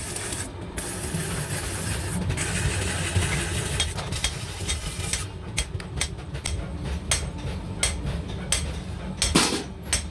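Lathe-type spinning machine running with an iron pan turning on it: a steady mechanical hum and hiss. From about halfway on, a run of sharp clicks and taps joins it, with one louder knock near the end.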